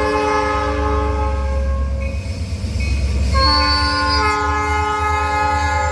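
Diesel locomotive's air horn sounding a chord at a grade crossing: one blast breaks off about two seconds in and a second long blast starts about a second later and holds. A steady low rumble runs underneath.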